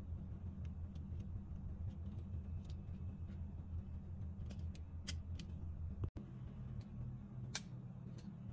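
Faint low room hum with a few soft, sharp clicks as small plastic wire connectors are handled and pushed onto the pins of an amplifier circuit board.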